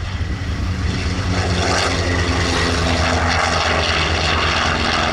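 F4U Corsair's 18-cylinder Pratt & Whitney radial engine and propeller running at power in flight, growing louder from about a second in and then holding steady.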